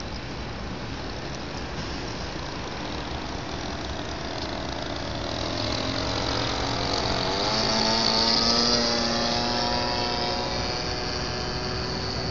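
Small two-stroke engine of a 20cc radio-controlled Cessna 182 model flying past overhead. Its buzz grows louder to a peak about eight seconds in, and the pitch drops as it passes.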